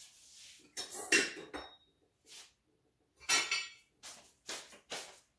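Kitchen dishes and utensils clinking and clattering as someone rummages for a forgotten item: a cluster of knocks about a second in, one clink ringing briefly after it, a denser clatter a little past three seconds, then a few lighter knocks.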